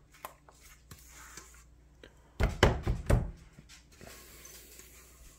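Spatula scraping batter out of a metal mixing bowl into a loaf pan, with faint clicks and then a quick run of loud knocks about two and a half seconds in, lasting about a second.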